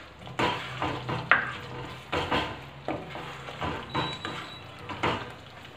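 A spatula stirring thick masala gravy in a nonstick kadai: a run of wet scrapes against the pan, roughly every half second, over a low sizzle of the gravy cooking in oil.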